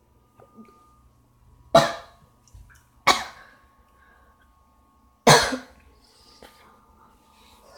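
A person coughing three times, loud and sharp, the third after a longer pause.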